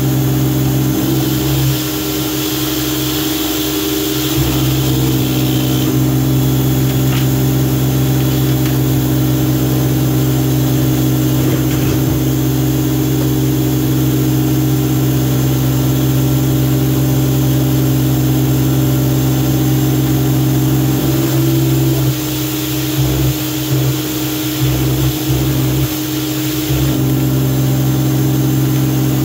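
Greenworks 2000 psi electric pressure washer running steadily, with a strong hum from its motor and pump and the hiss of water jetting from a spinning surface cleaner onto plastic trays. The hum dips briefly several times near the end.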